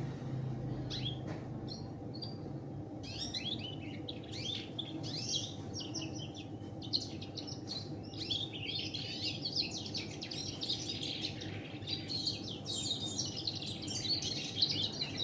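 Domestic canary singing a fast, continuous twittering song learned from red siskin recordings: a few scattered chirps at first, then unbroken song from about three seconds in.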